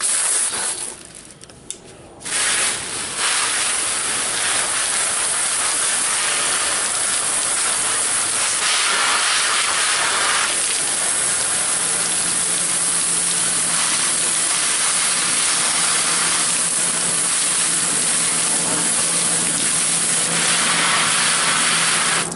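Garden hose pistol-grip spray nozzle hissing as a jet of water sprays onto a gloved hand. It starts with a short burst and a few spurts, then runs steadily and cuts off suddenly at the end.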